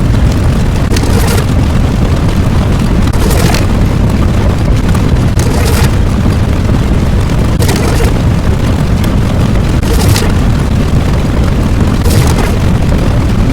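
Loud, continuous rumbling explosion sound effect, with a sharper blast about every two seconds, six in all.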